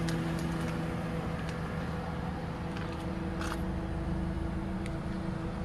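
A car engine idling steadily: an even low hum with a few faint light ticks.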